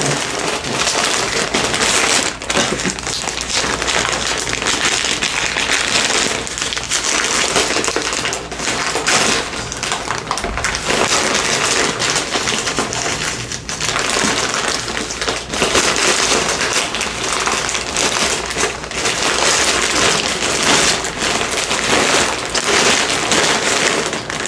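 A shipping package being opened and rummaged through close to the microphone: continuous crinkling and rustling of its packaging, with a few brief pauses.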